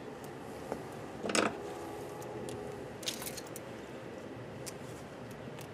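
Copper ground wire being handled and worked with a small hand tool. There is a brief scrape about a second and a half in, a sharp click near three seconds, and a few light metallic ticks.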